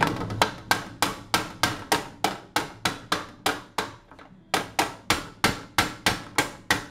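The blunt end of a hand tool is tapped against a thin metal laptop back-panel plate, about three strikes a second with a short pause midway. The plate is being dented so it is hollowed out and no longer presses on the fan, which the owner blames for the fan's clicking noise.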